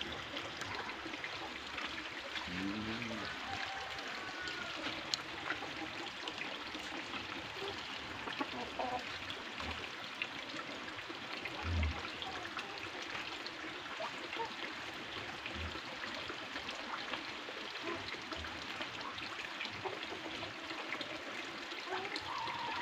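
Steady trickle of running water, with a few faint short animal calls and a soft low thump about midway.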